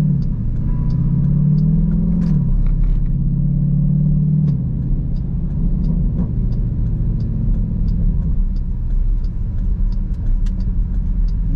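SUV's engine and road noise heard inside the cabin while driving: the engine note climbs and drops back twice in the first four and a half seconds, then settles into a steady drone. A faint regular ticking runs along with it.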